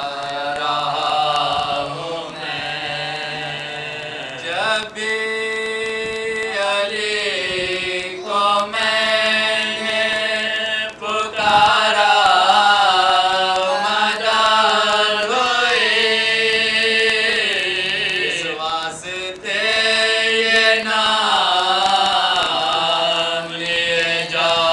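Men's voices chanting a marsiya, an Urdu elegy, in a slow melodic recitation with long held, wavering notes and brief breaks between phrases.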